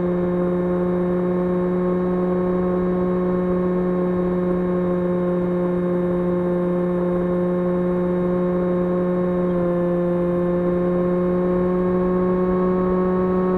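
2300KV brushless motor and propeller of an FPV model aircraft running at steady cruise throttle, a constant pitched whine. Its pitch drops slightly about two-thirds of the way through, then slowly climbs again.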